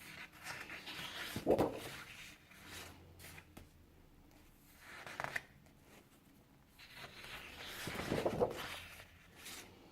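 Sheets of scrapbook paper rustling and sliding against each other as they are handled and leafed through, in four or so swishes with short pauses between, the longest from about seven to nine seconds in.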